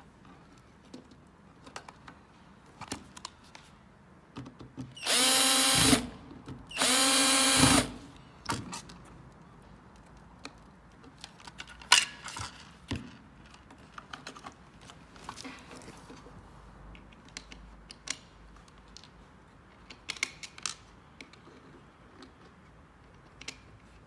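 Cordless drill-driver run in two short bursts of about a second each, a steady whine, about five and seven seconds in. Scattered light clicks and taps of plastic and wire being handled before and after.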